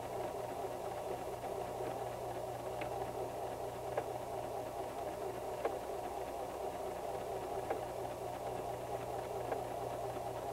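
White 1735 electric sewing machine running steadily, stitching forward and in reverse to darn a hole, with a few light clicks along the way.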